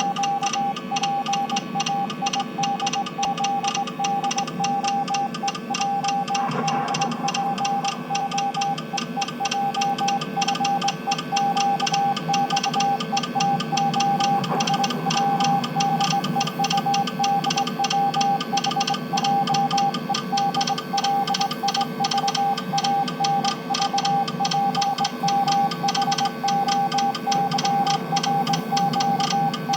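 Morse code sent as a single high beeping tone, keyed on and off in quick dots and dashes without a break, over a steady busy background.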